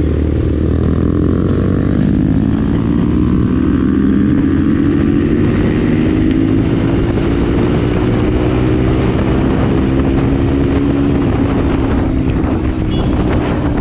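Bajaj Pulsar NS single-cylinder motorcycle engine heard from the rider's seat, pulling steadily with its pitch slowly rising over about ten seconds as the bike accelerates, under a constant low wind rumble.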